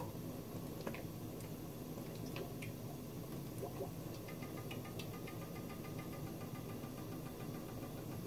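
Cooking oil pouring from a plastic bottle into a frying pan: a faint liquid trickle with a few small clicks, and from about four seconds in a fast run of faint ticks.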